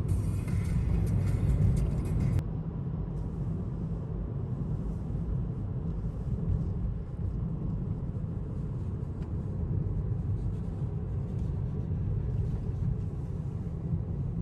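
Steady low rumble of a car driving, as heard from inside; a short bit of background music stops abruptly about two seconds in.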